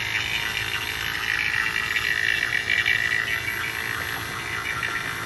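NAVAC 4 CFM battery-powered refrigerant vacuum pump running with a steady hum, evacuating a heat pump's line set and coil through the hoses.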